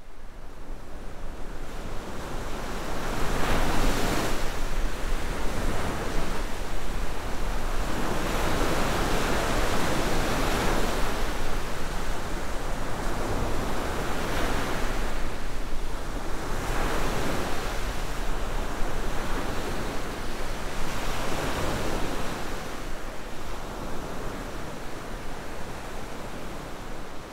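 Sea surf on a beach: waves breaking and washing in, swelling and ebbing every few seconds. It fades in over the first few seconds.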